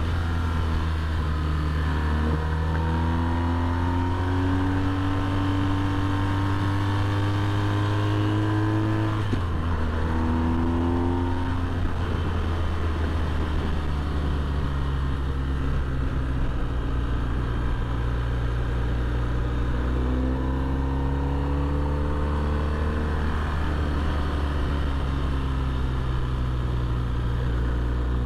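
Motorcycle engine pulling along a mountain road, its pitch climbing as it accelerates, dropping sharply about nine seconds in, then climbing again and holding fairly steady. A steady rush of wind and road noise runs under it.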